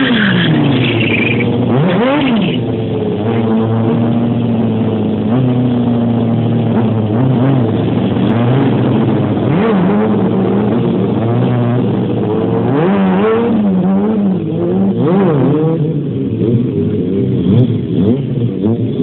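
Several sport motorcycle engines revving together, their pitch rising and falling continuously as the riders work the throttle to hold wheelies.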